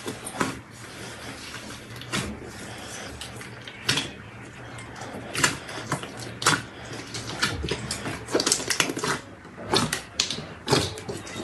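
Hands squeezing, pressing and poking soft slime in a glass bowl, with irregular sticky pops and crackles as air trapped in the slime bursts. A quick cluster of crackles comes about two-thirds of the way through.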